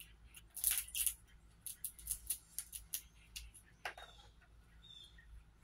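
Squirrel cracking and gnawing a peanut shell: a quick, irregular run of sharp crunches and cracks over the first three seconds or so, the loudest near the start.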